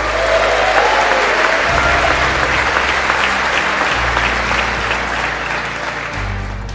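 Large audience applauding, a dense steady clapping that eases slightly toward the end.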